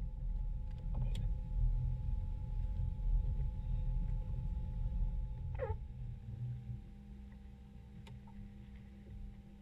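Boat engine idling at the dock, a low rumble that falls away about seven seconds in, leaving a steady low hum. A brief falling squeal sounds near the middle.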